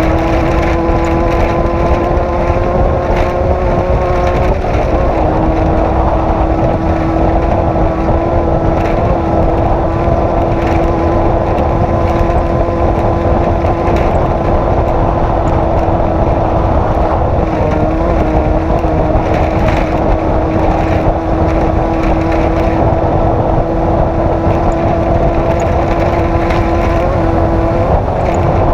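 Off-road race vehicle's engine held at steady high revs over a constant low rumble. Its pitch drops slightly about four and a half seconds in and wavers briefly later on.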